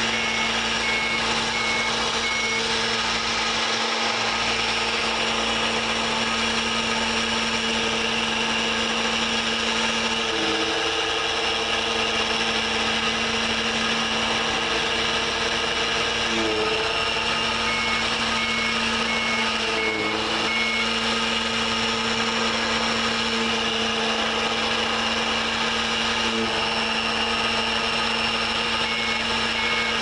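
Remote-control wheel loader with a lawn mower attachment running steadily: a constant motor whine with many overtones whose pitch briefly wavers a few times as the machine drives and mows.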